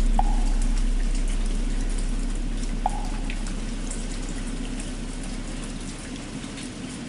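Steady rain with scattered drips, over the low hum of a large bell dying away. Two short wooden-fish knocks, one right at the start and one about three seconds in.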